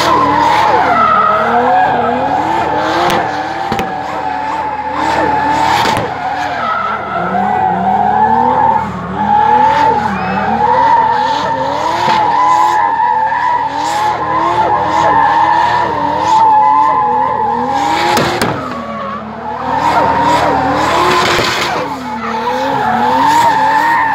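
Drift car sliding around a cone course, its tyres screeching steadily while the engine revs climb and drop over and over as the driver works the throttle through the slide.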